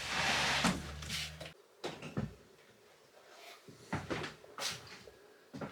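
Short hiss with a low hum that cuts off suddenly about a second and a half in, then a series of separate knocks and taps of hardware being handled and set against a wall while fitting a grab bar.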